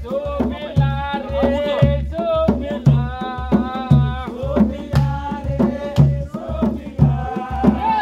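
Folk dance music: a deep drum beat about once a second, with a pitched melody over it.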